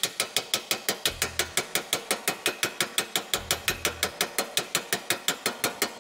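Rapid, even hammer-on-dolly taps, about seven a second, as a planishing hammer smooths a welded steel body panel with a dolly held behind it. Each blow is a sharp metallic tap.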